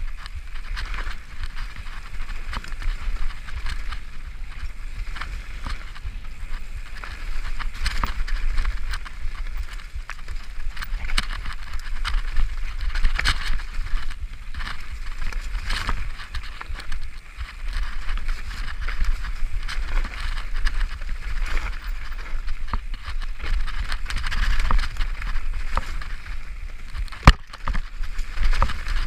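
Mountain bike riding fast down a dirt singletrack: tyres rolling over loose dirt and leaf litter, with the bike rattling and clicking over bumps, and a sharp knock near the end.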